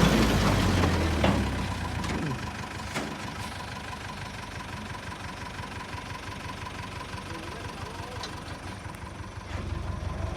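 Tata 912 tipper truck's diesel engine running near idle with a steady low chug, loud at first, settling quieter within the first few seconds and picking up again near the end.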